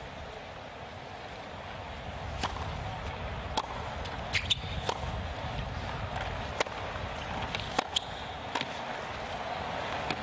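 Tennis rally: the ball struck by rackets and bouncing on a hard court, sharp cracks coming every half second to a second, about ten in all. Underneath runs a steady low rumble of strong wind on the microphone.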